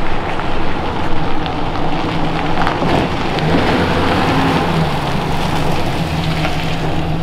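Chevrolet utility-body work pickup driving past close by on a dusty dirt road: a steady rush of tyre noise on the loose surface, with the truck's engine running as a steady low tone that comes up about halfway through.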